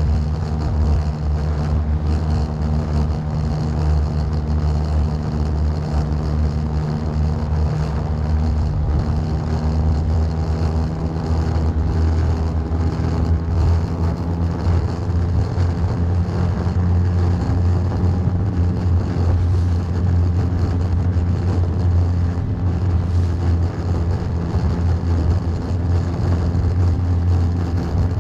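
A small fishing boat's engine running steadily underway, with a slight change in its note about nine seconds in.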